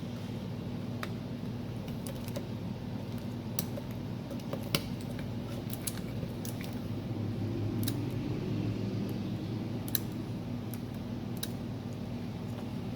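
Scattered light clicks and taps, about a dozen spread irregularly, from small parts and cables being handled, over a steady low electrical hum.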